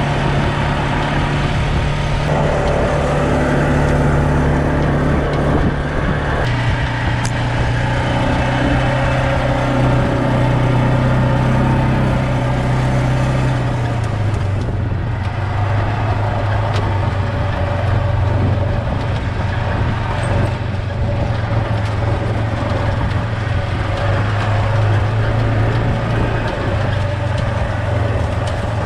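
Side-by-side UTV engine running as the vehicle drives along a dirt road, its pitch stepping down twice, about six and fourteen seconds in.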